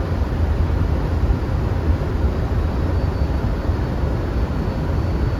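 Steady cockpit noise of an Airbus A330 on final approach: airflow and engine noise, a strong low rumble with an even hiss above it.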